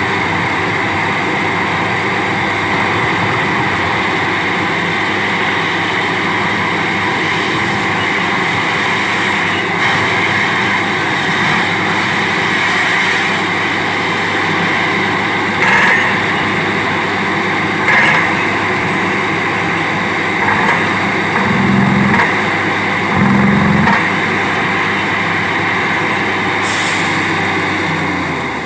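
Borewell drilling rig running steadily and loudly, with a few short, louder knocks now and then.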